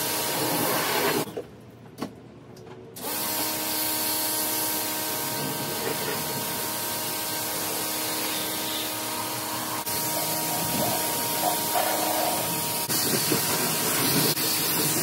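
Water jetting from a hand-held hose spray gun onto a car's body, rinsing off shampoo suds. The spray stops about a second in, starts again about two seconds later, and then runs steadily.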